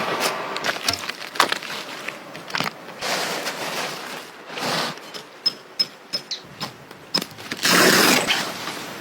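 Irregular knocks and clicks with bouts of rustling noise, and a louder rush of noise near the end. A few short, high peeps come in the middle.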